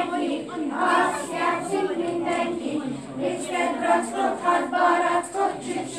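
A group of young children singing a song together in unison, with held notes, as part of a ring game.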